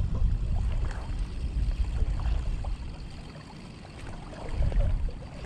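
Choppy water lapping and sloshing close to the microphone, with wind rumbling on it. The sound eases off about halfway through and builds again near the end.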